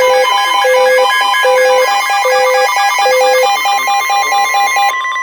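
Several NOAA weather radios sounding their electronic alert alarms at once: a fast beeping pattern over a slower low beep repeating about every 0.8 s. Near the end the beeping stops and a steady high tone, the broadcast's warning alarm tone, carries on. The radios are alerting to a severe thunderstorm warning.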